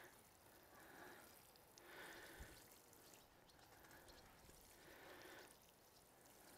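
Near silence: a faint sprinkle of water falling from a watering can's rose onto bare, freshly sown soil.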